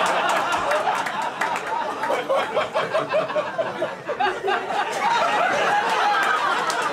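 Comedy club audience laughing loudly after a roast punchline, a sustained roar of laughter with one person's rapid ha-ha-ha standing out two to three seconds in.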